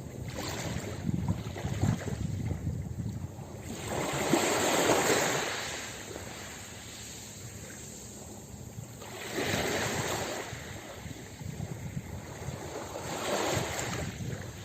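Ocean waves breaking and washing up a beach, swelling three times about four seconds apart over a low rumble of wind on the microphone.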